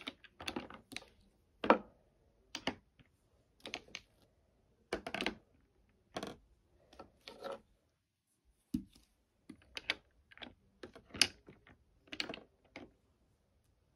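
Glass nail polish bottles clicking and knocking against each other and the plastic organizer bins as they are set in one at a time: irregular light taps, one or two a second, with a short pause about two-thirds of the way through.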